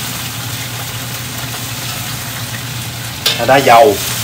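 Water spinach sizzling in hot oil in a wok as it is stir-fried, a steady frying hiss over a low steady hum.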